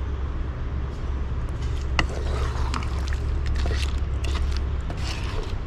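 Wooden spatula scraping and tapping against a metal pot as it stirs a thick meat gravy, a few scattered clicks, over a steady low rumble.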